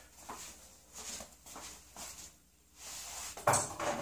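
Light clinks and rattles of a glass shelf and its small metal mounting fixture being handled, with a sharper knock about three and a half seconds in.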